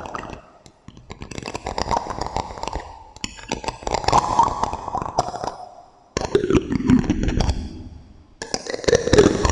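ASMR handling sounds with an echo effect: rapid tapping and scratching on small objects in runs of about two seconds, four in a row separated by short pauses.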